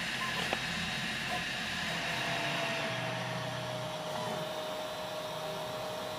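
HyperCube CoreXY 3D printer running a print: steady hiss of its cooling fans, with a steady whine joining in about two seconds in as the print head moves.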